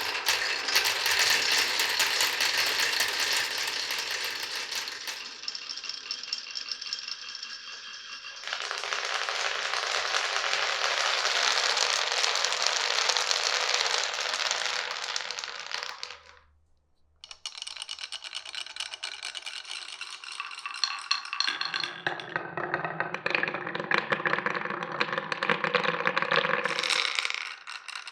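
Marbles rolling and clattering through a wooden and plastic marble run: quick clicking and rattling, then a long dense, steady rolling rush, a brief break, more clicking, and near the end a lower, hollow rolling sound.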